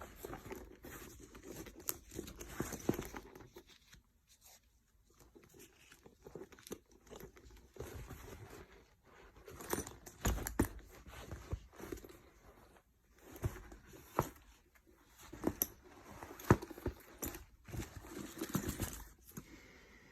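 Packaging being handled and opened: irregular crinkling and rustling, with scattered sharp clicks and knocks.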